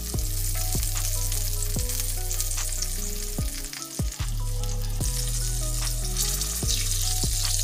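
Breaded oyster mushrooms sizzling in olive oil in a cast-iron skillet: a steady frying hiss with scattered pops, over a low steady hum.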